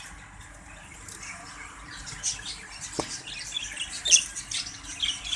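Exhibition budgerigars chirping and chattering in short, high calls that get busier from about two seconds in. A single sharp click comes about three seconds in.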